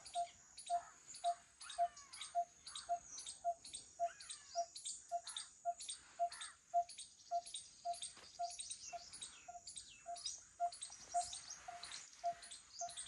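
Birds calling in trees beside fields: one bird repeats a short low note steadily about twice a second while others chirp and whistle, over a steady high-pitched insect drone.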